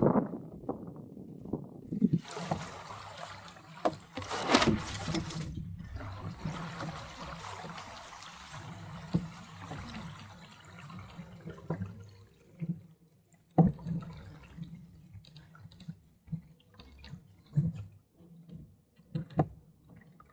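Water gurgling and splashing along a 1965 Sunfish sailboat's hull and rudder as it sails, with irregular slaps of small waves against the hull. A louder rush of noise sweeps in about two seconds in and drops away about four seconds later.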